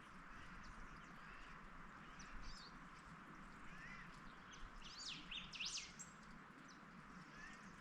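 Faint birds calling: scattered short high chirps, with a flurry of quick rising and falling whistled calls about five to six seconds in, over a steady low hiss of outdoor ambience.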